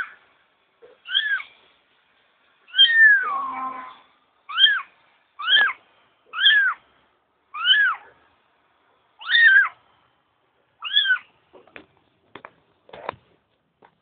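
Young kitten meowing repeatedly, about nine high calls each rising then falling, roughly one a second, with one longer, drawn-out meow about three seconds in. A few short taps follow near the end.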